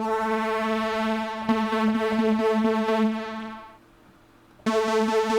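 Arturia MS-20 V software synthesizer, an emulation of the Korg MS-20, playing a held note with a slight pulsing. The note stops a little before four seconds in, and the same note sounds again about a second later.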